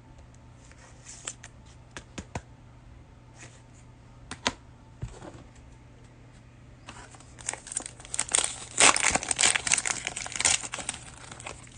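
Plastic wrapper of a trading-card pack crinkling and tearing as it is opened. A few faint scattered rustles and clicks come first, then a dense stretch of crinkling in the second half.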